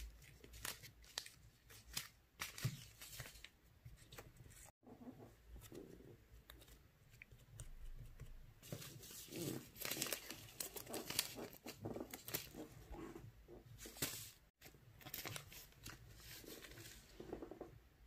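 Clear plastic packaging bag crinkling and tearing as it is handled and opened, a dense run of crackles broken by two abrupt cut-outs. Near the end come softer squishing sounds as fingers press into sticky slime.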